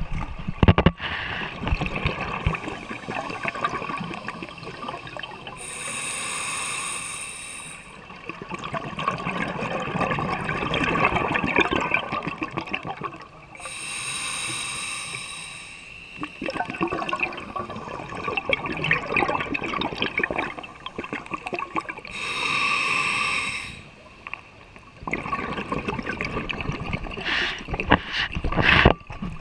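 Scuba diver breathing through a regulator underwater: a hissing inhale three times, roughly every eight seconds, each followed by several seconds of crackling, gurgling exhaust bubbles.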